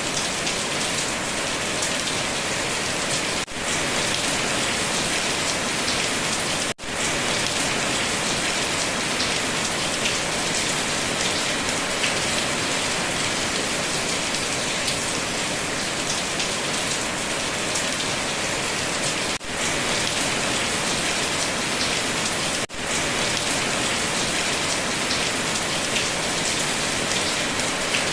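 Steady heavy rain falling on a surface, a dense, even patter of drops. It cuts out for an instant four times, at about 3.5, 7, 19.5 and 23 seconds, then carries on at the same level.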